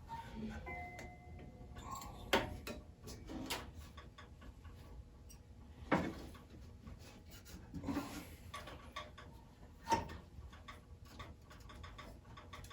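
A urethane bandsaw tire being worked by hand onto the wheel of a 12-inch bandsaw: light rubbing with scattered sharp clicks and knocks, the loudest about two, six and ten seconds in. The tire has cooled and stiffened, so it is a tight, stubborn fit.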